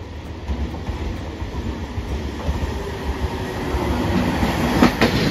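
Hiroden streetcar 3701 approaching on the tracks, its running rumble growing steadily louder. Near the end its wheels start clacking over the rail joints.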